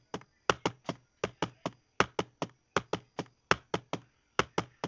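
Demonstration heart sounds in a gallop rhythm: sharp knocks in groups of three, a bit more than one group per second, the three-beat cadence the narrator calls an atrial gallop (S4 added to S1 and S2).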